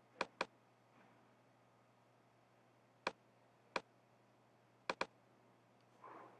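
Computer mouse clicks: six sharp, short clicks in three pairs, near the start, about three seconds in with the two clicks spread apart, and about five seconds in, over a faint steady hum.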